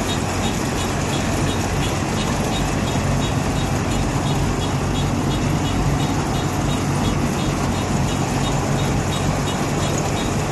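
Kubota 988Q combine harvester running steadily at working speed, its engine hum mixed with the even noise of the machinery, and a faint regular ticking higher up.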